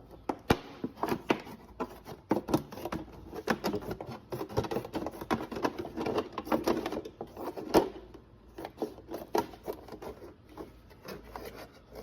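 A plastic milk jug being cut and handled to make a funnel: a long run of irregular clicks and crackles of the stiff plastic.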